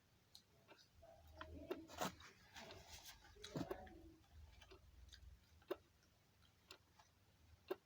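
Quiet handling of a snack: faint scattered clicks and rustles, with two short low murmurs about one and a half and three and a half seconds in.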